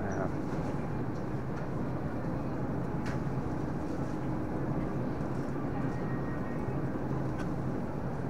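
Steady low hum and hiss of store ambience in front of an open refrigerated dairy case, with a couple of faint clicks.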